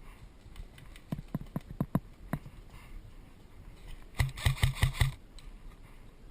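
Airsoft guns firing: a handful of scattered sharp single shots, then a quick burst of about seven loud shots in under a second past the middle.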